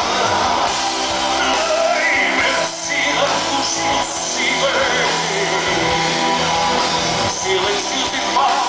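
Live rock band playing: a male singer over electric guitars, bass and drums, heard from the audience.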